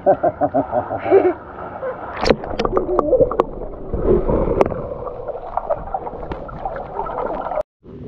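Pool water sloshing and gurgling around an action camera as it dips below the surface and comes back up, with sharp splashes a little after two seconds and a muffled underwater rumble in the middle. The sound cuts off suddenly near the end.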